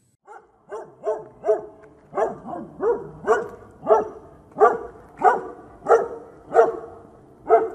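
A dog barking over and over, more than a dozen short barks, quicker at first and spacing out to about one a second toward the end.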